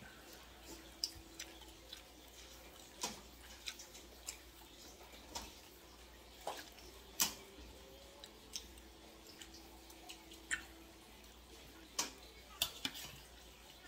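Scattered light clinks and taps of kitchenware, a ladle, bowl and pot being handled, coming at irregular intervals with the sharpest about seven seconds in and again near the end.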